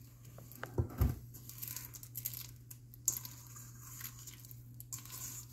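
Silicone spatula folding candy-coated chocolates into thick cookie-dough-like batter in a stainless steel mixing bowl: soft scraping and squishing, with a couple of knocks against the bowl about a second in.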